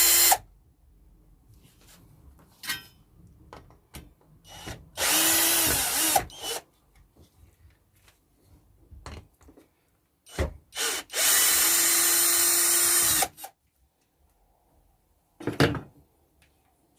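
Power drill running in three short bursts, the last lasting about two seconds, its motor pitch dropping as each burst stops. Between the bursts come handling knocks and a single sharp thump.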